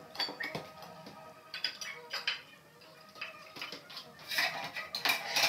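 Ceramic tile pieces and tools clinking and knocking as they are handled, in scattered bursts, over faint background music.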